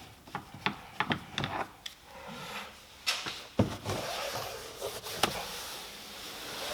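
Hand work on a car's plastic door card with a Torx screwdriver: a few light clicks, then a rustling scrape with sharp knocks about three seconds in, half a second later, and again about five seconds in.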